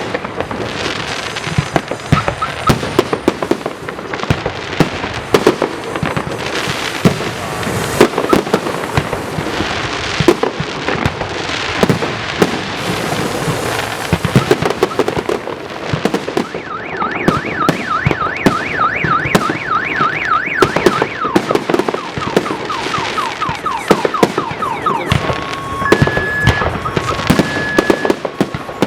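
Fireworks salute: a continuous run of shells bursting with bangs and crackle. A little past halfway a car alarm starts up over it, first with a fast warbling chirp, then near the end with an alternating two-tone beep.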